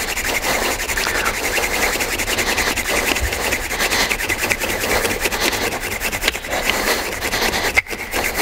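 Wooden fire-drill spindle twisted back and forth in a fireboard notch: a steady scratchy wood-on-wood rubbing, with a brief break near the end. The friction is grinding hot wood dust in the notch to build up heat for an ember.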